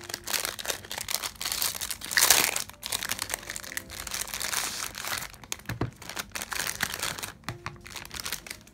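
Clear plastic packaging wrap crinkling as hands pull it off a small boxed palette, in a run of crackles with the loudest burst about two seconds in, dying down near the end.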